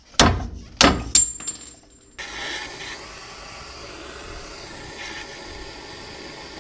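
Metal parts clattering on a hard surface: three sharp metallic clanks, the last leaving a short high ring. About two seconds in, a steady hiss starts and runs on unchanged.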